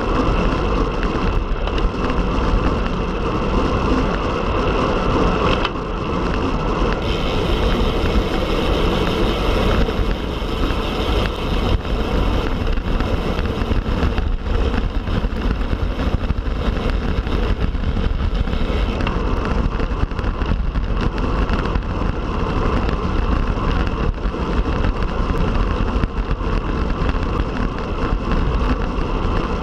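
Steady rush of wind on the microphone and tyre noise from a Specialized Tarmac Sport road bike being ridden at speed.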